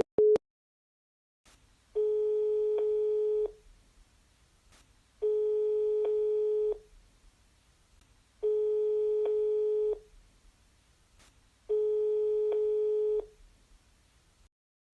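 Telephone ringback tone, the ringing a caller hears down the line. A steady tone of about 1.5 seconds repeats four times, about every three seconds, with faint line hiss and an occasional click in the gaps.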